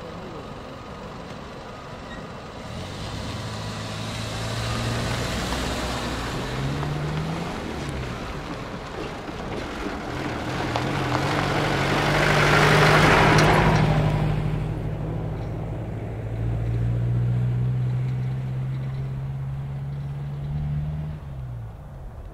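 A vehicle engine passing close by, getting louder to a peak about midway and then fading, its low note stepping up and down in pitch a couple of times.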